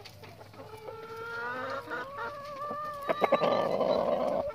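A rooster crowing: one long drawn-out crow that rises slightly in pitch, then turns rough and hoarse near the end and stops abruptly. Hens cluck briefly in the background.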